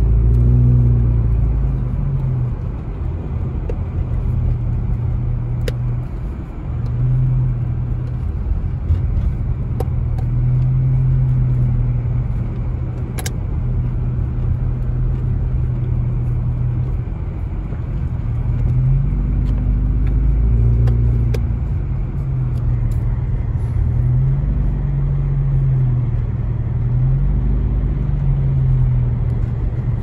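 Car engine and tyre noise on a snow-covered road, heard from inside the cabin: a steady low rumble, with the engine note rising and falling several times as the car speeds up and eases off.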